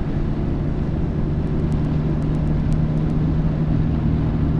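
Engine and road noise heard inside the cabin of an older car on the move: a steady low drone over tyre rumble, growing a little stronger about a second and a half in.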